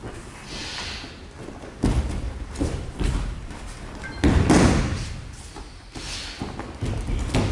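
Thrown aikido partners landing on tatami mats in breakfalls: several dull thumps and slaps, the loudest about four and a half seconds in.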